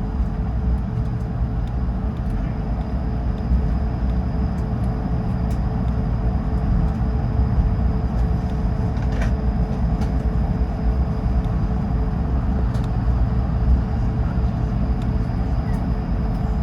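Steady cabin noise of an Airbus A220-300 taxiing, its Pratt & Whitney PW1500G geared turbofans running at low power: a low rumble with a steady mid-pitched tone and a faint high whine over it.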